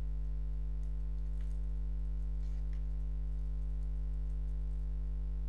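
Steady low electrical hum on the recording, with a few faint computer keyboard keystrokes as code is typed.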